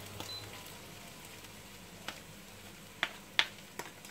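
Seafood sautéing faintly in a frying pan, with a few short clicks of wooden spoons against the pan in the second half.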